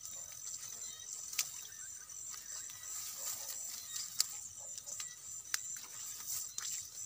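A steady, high chirring chorus of night insects, over the rustle of footsteps through tall grass, with a few sharp clicks, the loudest about four seconds in.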